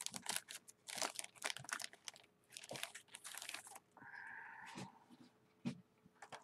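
Clear plastic cellophane bag crinkling and crackling as a card is pulled out of it, busiest in the first four seconds and followed by a few light clicks.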